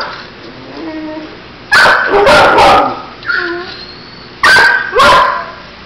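Dogs barking sharply in a shelter kennel: three quick barks about two seconds in and two more about a second and a half later, with faint whining between.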